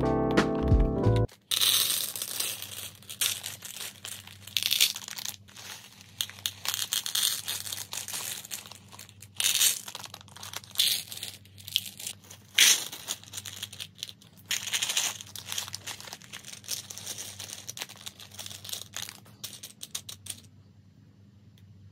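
Background music that stops about a second in, then plastic bead bags crinkling and rustling while small plastic beads rattle and click into the compartments of a clear plastic organizer box. The handling stops shortly before the end.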